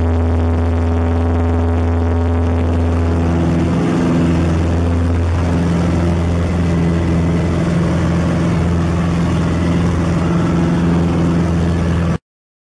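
Engine and propeller of a small single-engine plane running loud on the takeoff roll, heard from inside the cabin. The engine note shifts about three seconds in, and the sound cuts off abruptly near the end.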